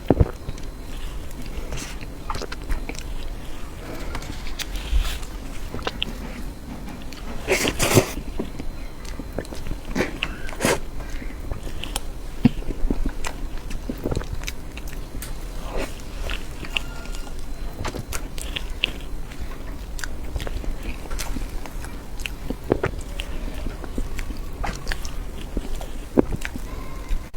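Close-miked eating of soft cream cake: bites and chewing with many scattered small clicks, and one louder burst about eight seconds in.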